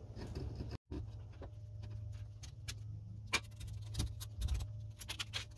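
Scattered light metallic clicks and taps as a rusty brake caliper is worked by hand over the pads and onto its bracket, over a steady low hum.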